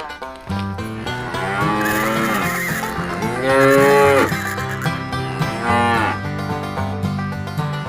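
Cows mooing: three long moos, the loudest in the middle, over light background music.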